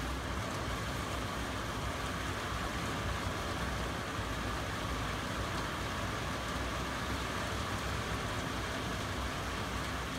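Heavy rain falling steadily at night, an even hiss with a low rumble underneath.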